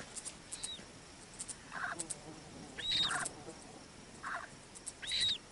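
Night-time animal calls: a short high call that rises and falls, repeated about every two seconds, with lower, shorter calls in between.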